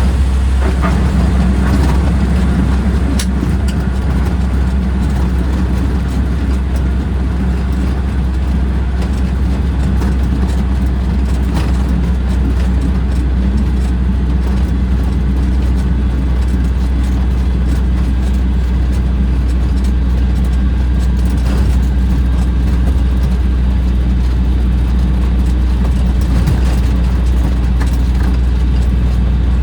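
Skyranger Swift microlight's engine and propeller running steadily: a loud, even, low drone with no clear change in power.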